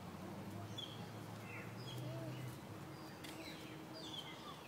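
Birds chirping in the background: short high chirps and a few quick downward-sweeping calls every second or so, over a low steady hum.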